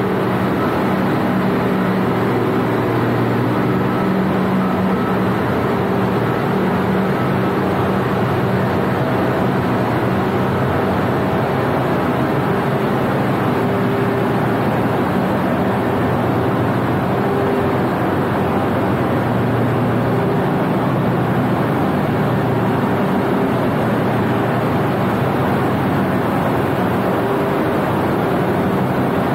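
Steady, loud mechanical drone: an unbroken noise with a low hum and a few steady tones underneath, from machinery running.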